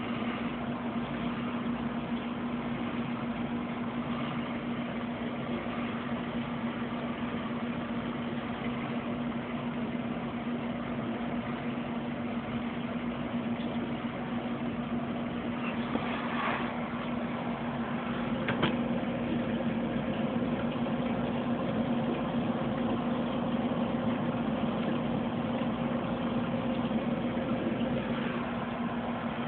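Steady electric hum of aquarium equipment such as a pump motor, holding one constant low tone, with a single sharp click about two-thirds of the way through.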